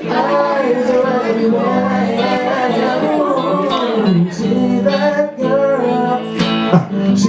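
A woman and a man singing together to an acoustic guitar accompaniment, the voices held and sliding in long sung phrases.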